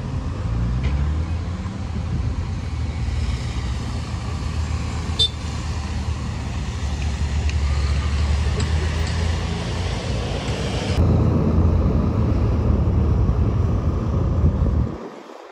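City bus engine running amid road traffic, its pitch rising just after the start. The sound changes abruptly about eleven seconds in and drops away sharply just before the end.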